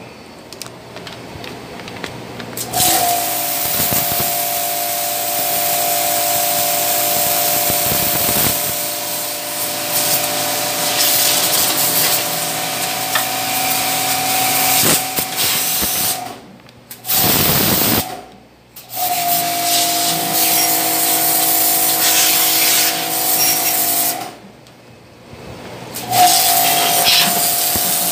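Pressure washer running with a steady whine over the hiss of its water jet spraying a tiled floor. It starts about three seconds in and cuts out three times, twice briefly past the middle and for about two seconds near the end.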